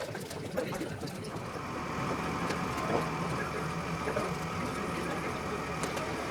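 Steady mechanical hum of a small motor running.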